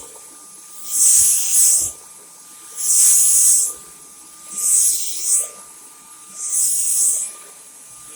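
Dyson V10 cordless stick vacuum running, with a faint steady whine under a loud hiss that swells and fades about every two seconds.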